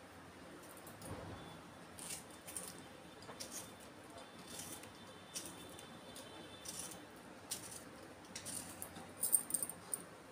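Faint, scattered clicks and light taps of a small knife slicing a tomato held in the hand, with bangles clinking as the hands move.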